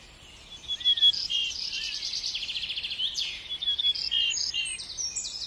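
Several songbirds singing and calling at once: short whistled notes overlapping with fast, evenly repeated trills.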